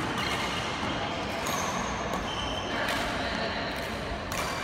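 Badminton rally: rackets striking the shuttlecock in turn, a sharp hit about every second and a half, in a large sports hall.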